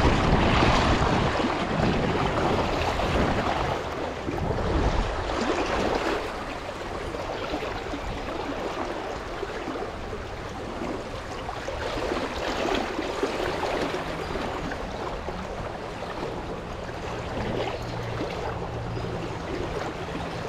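Rushing creek current, swollen and choppy after rain, flowing close past the microphone. Wind buffets the microphone for the first few seconds, then the water sound settles and runs steadily.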